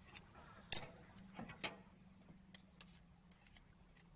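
Sharp metallic clicks and clinks as a steel screwdriver tip is pushed and tapped against the spool of a Komatsu PC200-7 excavator's main relief valve: a handful of clicks over the first three seconds, the loudest about a second and a half in. The spool is stuck and will not move, jammed, in the mechanic's view, by brass particles from the failed main pump.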